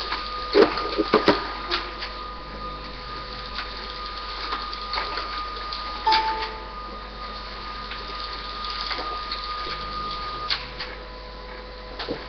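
Marker pen writing on a whiteboard: irregular taps and scratches, with a cluster of sharp taps about a second in and a short squeak about six seconds in.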